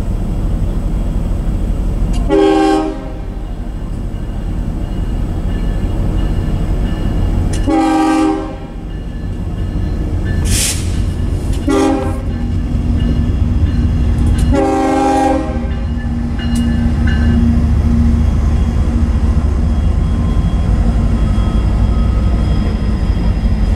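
Diesel freight locomotive's air horn sounding the grade-crossing signal: long, long, short, long. Under it runs the low rumble of the approaching train, which grows louder near the end as the locomotives reach the crossing.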